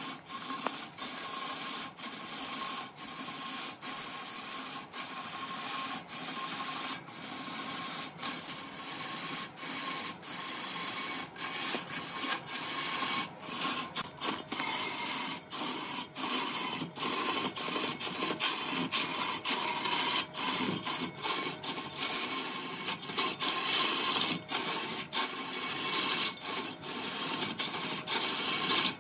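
Wood lathe turning, with a tool cutting into the spinning wood: a steady high hissing scrape over a faint steady whine, broken by frequent brief gaps.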